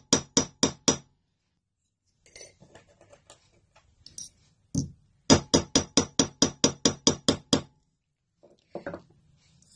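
Cross pein hammer striking a thin metal sheet on a bench block to texture it, in quick runs of light, ringing metallic taps about five a second. A handful of taps come at the start, then one lone tap, then a run of about a dozen taps, with quieter handling of the metal in between.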